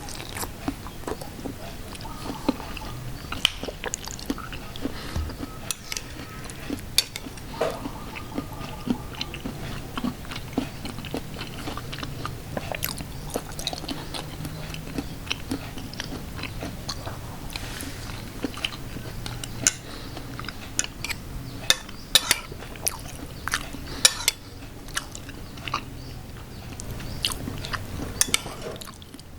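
Someone eating soup close to the microphone, with wet slurps of broth and mouth smacks at an irregular pace, and many short sharp clicks throughout.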